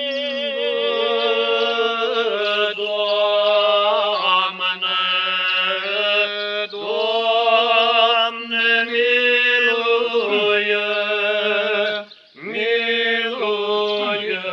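Orthodox liturgical chant: a sung melody with vibrato over a steadily held lower note, with one short break about twelve seconds in.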